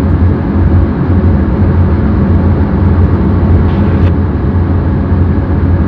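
Diesel locomotive engine sound running as a steady, loud low drone, as heard on a model-railroad cab ride.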